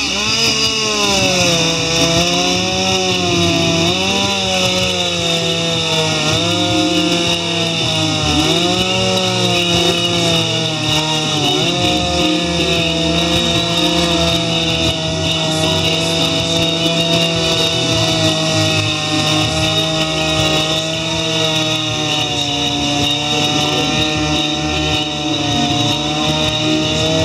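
Two-stroke chainsaw cutting into an upright log in chainsaw carving. The engine pitch dips and recovers several times as the chain bites during the first half, then holds steady at high revs.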